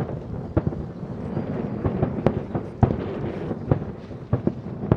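Aerial fireworks shells bursting in quick succession: a rapid, irregular series of sharp bangs, roughly two a second, with rumbling echoes between them.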